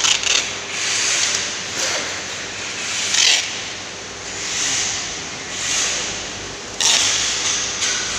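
Plastic packing wrap rustling and rubbing as it is handled around a wrapped bundle, coming in repeated swells of about a second each.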